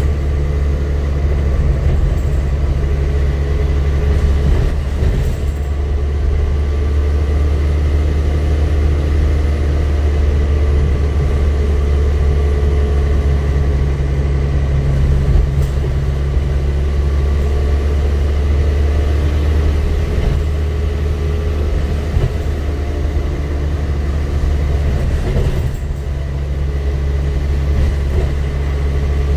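Dennis Trident double-decker bus on the move, heard from the upper deck: a steady low engine drone with road noise and a few brief knocks and rattles from the body.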